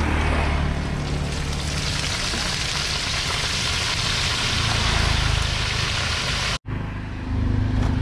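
Food deep-frying in a large wok of hot oil, a steady dense sizzle, over a low steady engine hum. The sound cuts out for an instant about two-thirds of the way in, after which the engine hum is louder.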